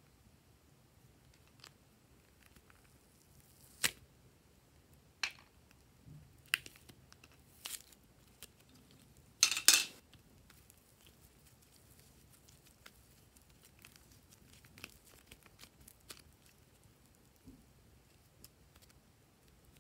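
Soft pink foam squishy being squeezed and pulled apart by hand: sparse small clicks and crackles, with one louder crackling rip about ten seconds in.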